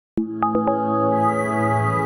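Short logo-intro music sting. A sharp opening hit is followed by three quick struck notes in fast succession, which ring on over a bed of held, steady tones.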